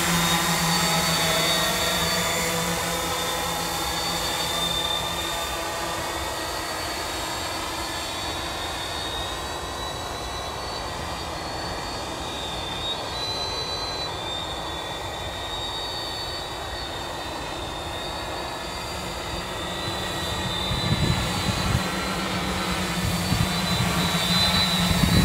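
Octocopter's eight electric motors and propellers buzzing steadily in flight. The buzz fades as the drone flies away on its circle and grows louder again near the end as it comes closer.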